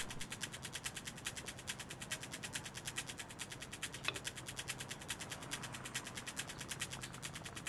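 Quiet suspense soundtrack: fast, even ticking at about ten ticks a second over a faint low hum, with a soft whoosh about four seconds in.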